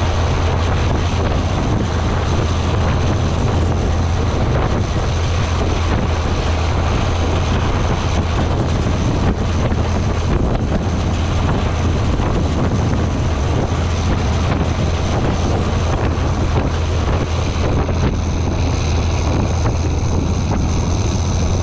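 Tractor engine and Kelly Ryan Feed-R-Wagon feeder wagon running steadily as the wagon discharges feed, a low drone under a noisy mechanical spread, with wind buffeting the microphone.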